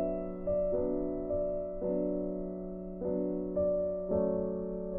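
Slow, gentle piano music: soft chords and single notes struck about once or twice a second, each ringing on and fading.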